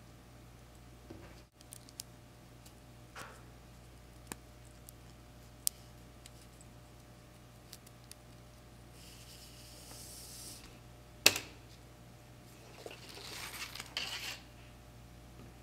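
Paracord being handled and pulled through loops wrapped around a finger: soft rustles of the nylon cord sliding, twice for a second or more, with scattered small clicks and one sharp click about eleven seconds in. A faint steady low hum lies underneath.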